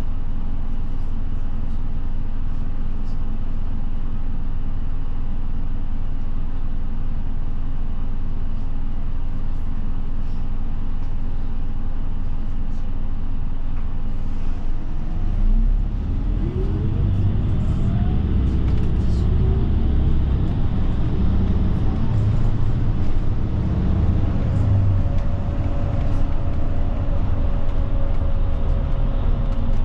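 Route bus's diesel engine running steadily at low revs inside the cabin. About halfway through it builds up, with a rising whine, as the bus pulls away and accelerates.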